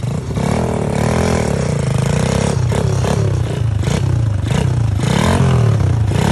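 Dirt bike engine revving up and down repeatedly as it is throttled in short bursts, with a few knocks and clatters about two and a half to three seconds in.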